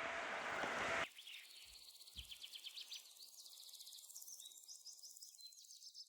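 A steady noise hiss cuts off about a second in and gives way to faint nature ambience: rapid, repeated high-pitched chirping from birds or insects, with two brief low thumps around two seconds in.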